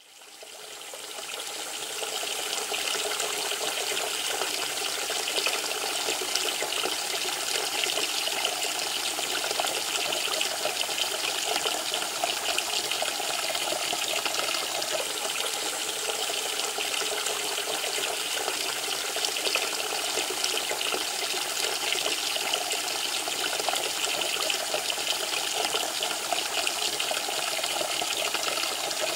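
Water running steadily from a bath tap, pouring into a tub as it fills. It fades in over the first couple of seconds and then holds even.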